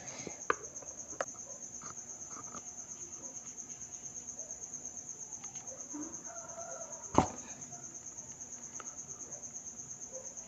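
Steady, fast-pulsing high-pitched chirring of crickets in the background, with a few faint clicks and one sharp click about seven seconds in.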